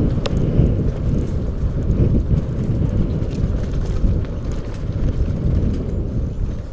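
Wind rumbling hard over a GoPro's microphone as a mountain bike rides fast down a dirt trail. Light clicks and rattles come from the bike over the ground, with one sharp click just after the start.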